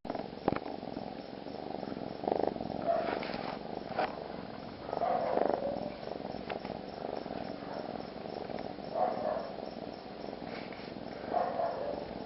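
Domestic cats purring loudly after being petted, a steady purr that swells now and then, with a few soft clicks.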